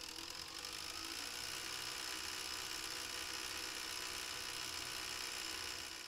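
Philips DCC 951 Digital Compact Cassette deck winding the tape at high speed: a steady whirring buzz from the reel motor and gears that rises in pitch over the first second or so, then holds. The deck still has the original cracked gear on the reel motor assembly, the cause of the rattling noise during winding and rewinding.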